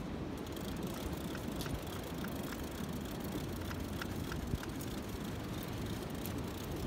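Steady wind noise on the microphone, with scattered light clicks from a fishing reel as the line is cranked in.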